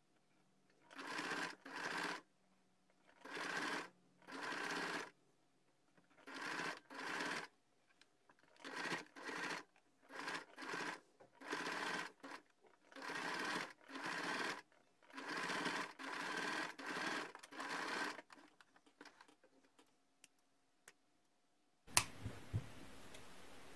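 Domestic electric sewing machine stitching in many short runs of about half a second to a second, stopping and starting again and again as the fabric is turned. It is topstitching a few millimetres in from the edge around the bag. The stitching stops about 18 seconds in, and a sharp click comes near the end.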